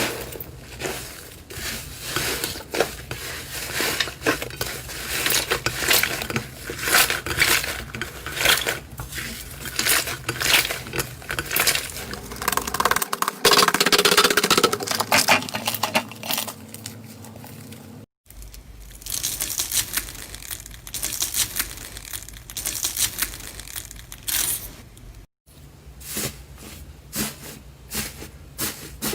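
Slime being squeezed and pressed by hand, giving a rapid stream of sticky clicks and crackling pops. The sound breaks off abruptly twice, at edits between clips.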